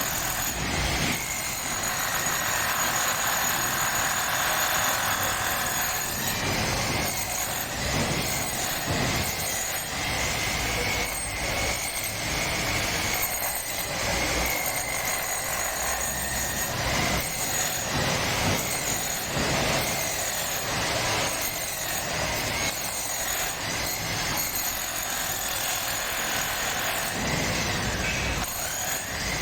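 Power drill boring into a concrete floor, running steadily under load with a faint wavering whine over a constant grinding noise.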